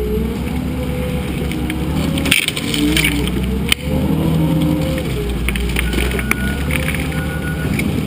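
Wheel loader's diesel engine working under load, its pitch rising and falling as the bucket pushes into a wooden barn wall, with two sharp knocks about two and a half and nearly four seconds in.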